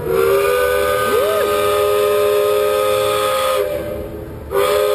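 Steam tug's chime whistle sounding a chord of several notes at once: one long blast of about three and a half seconds, then a second blast starting near the end.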